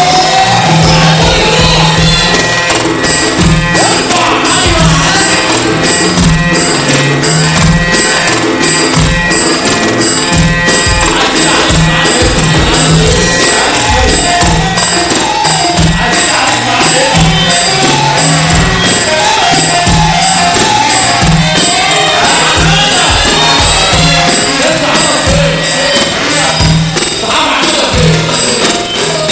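Loud Egyptian mahraganat music with a fast, dense drum beat.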